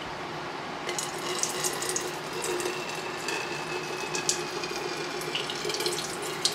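Melted candle wax pouring from a wax melter's spigot into a pouring pitcher below: a splashing, trickling stream that starts about a second in and keeps running.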